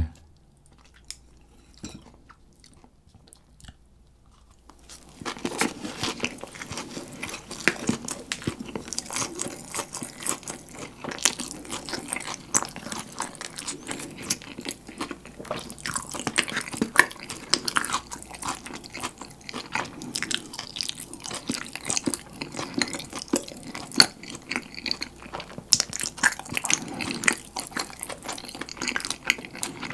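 Close-miked eating sounds: chewing and crunching fried chicken in a soft bread bun. A few faint mouth clicks at first, then steady crunchy chewing from about five seconds in.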